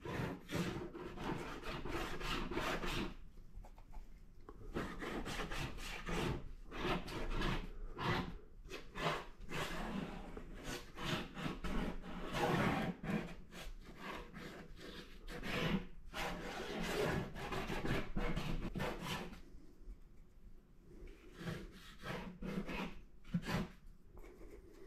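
Paintbrush dragged and scrubbed across paper in quick strokes, a dry rubbing scratch in runs of strokes, pausing briefly about three seconds in and again near the end.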